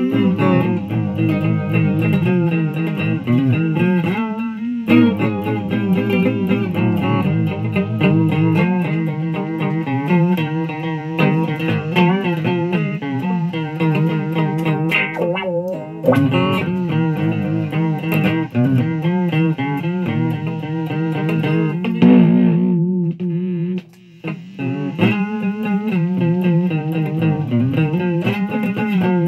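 Electric guitar played through a Fuzz Face fuzz pedal on a run-down battery, giving a distorted, 'horrible' fuzz tone. Sustained notes bend and waver in pitch, and the sound cuts out briefly about three-quarters of the way through.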